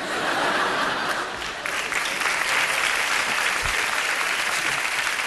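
Studio audience applauding, growing stronger about a second and a half in.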